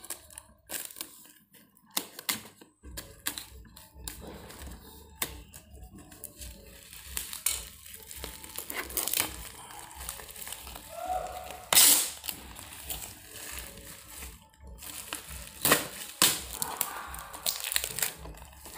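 Plastic parcel wrapping being cut with scissors and pulled open by hand, crinkling and crackling in irregular rustles, with one loud crackle about twelve seconds in.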